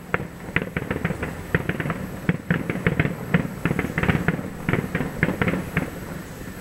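Distant aerial fireworks going off across the water: many sharp bangs and crackles in quick, irregular succession, several a second, thinning out and stopping near the end.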